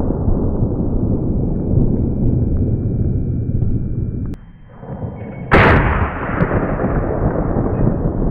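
A single gunshot about five and a half seconds in: one sharp crack with a short decaying tail. It sits over loud low rumbling noise that drops out briefly just before the shot.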